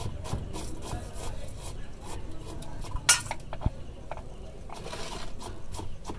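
Scattered light clinks and taps of steel utensils and bowls, with one sharper clink about three seconds in, and soft rubbing as the egg filling is spread by hand over the paratha dough.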